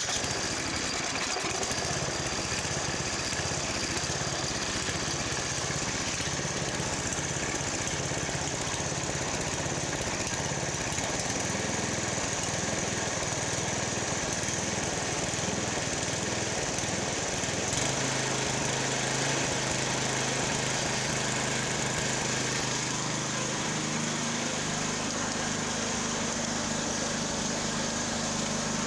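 Snowblower's small gas engine running steadily just after being started, now free of the major vacuum leak that had kept it from running. About eighteen seconds in, its note shifts and runs steadier.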